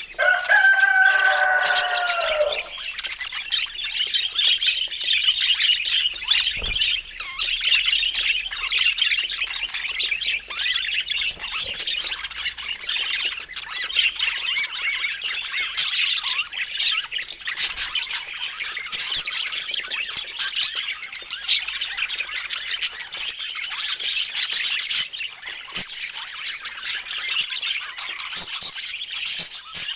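Budgerigars chattering and warbling continuously, with a louder call that slides downward in pitch over the first two seconds.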